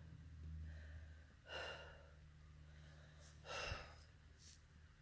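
A person's faint, strained breaths, two sharp gasps or sighs about two seconds apart, while enduring a painful dystonic leg and foot spasm.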